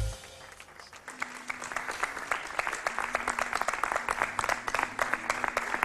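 Audience applause: scattered claps starting about a second in and quickly building into dense, steady clapping.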